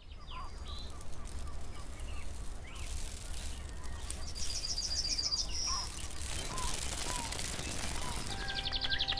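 Birds chirping, with a short rapid trill about four seconds in, over a steady low background rumble. Music fades in near the end.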